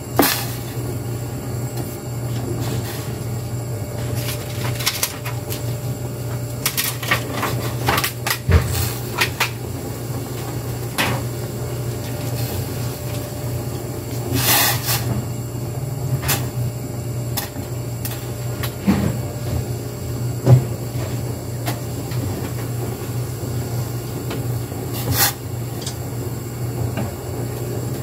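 Pork wontons boiling in a stainless steel pot of water, over a steady low hum. Scattered sharp clicks and knocks, one of the strongest about halfway through, as a wooden utensil stirs the wontons against the pot.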